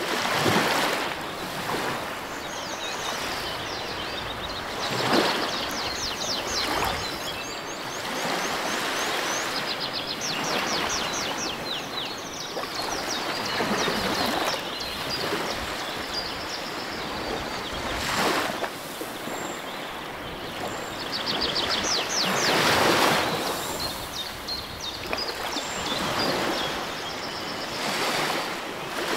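Steady rush of a stream running over rocks, swelling louder now and then, with occasional knocks and rustles of food being handled.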